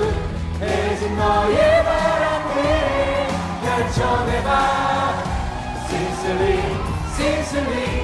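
A Korean pop song from a stage musical: sung vocals over a steady band accompaniment.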